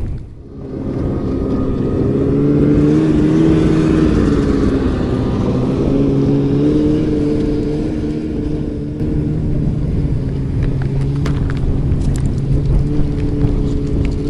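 An engine running steadily close by, its pitch rising a little a couple of seconds in and settling again. A few light clicks near the end.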